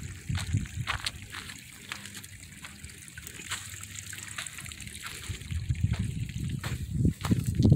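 Water trickling faintly over mud and dirt, with scattered light crunches and ticks.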